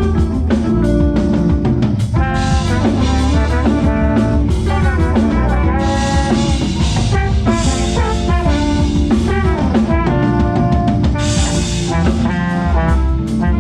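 Live band playing a fast groove, with horns over drum kit and bass.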